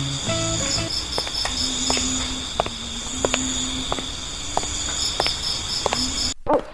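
Crickets chirping steadily in a night-time ambience, with short runs of rapid high chirps. The ambience cuts off abruptly near the end.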